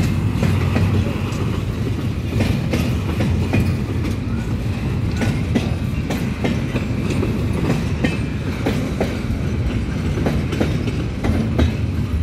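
Freight train's loaded container flatcars rolling past, their wheels clacking over the rail joints in a run of irregular knocks over a steady low rumble.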